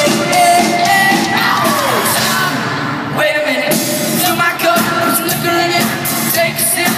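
Live pop-rock band with electric guitars, bass and drums playing through an arena sound system, with singing and fans screaming along. The band thins out briefly about two and a half seconds in and comes back in hard just after three seconds.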